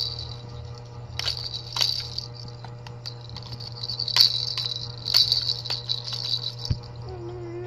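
Plastic baby rattle shaken by hand in irregular bursts, a bright jingling with sharp clicks as it knocks about.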